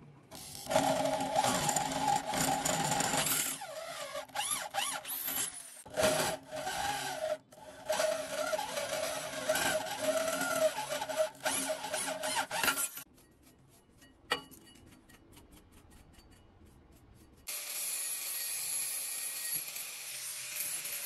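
Electric hand drill boring a twist bit through steel bar, the bit grinding in the metal with a few short pauses, for about the first 13 seconds. A single click follows in a quiet stretch. About 17 seconds in, an angle grinder starts running steadily, spinning free.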